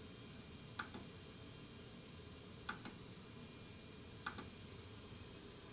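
Three short, sharp clicks from the Creality Ender 3's rotary control knob being pressed to work its menu, each followed by a softer click about a fifth of a second later. A faint steady hum of the printer's fans runs underneath.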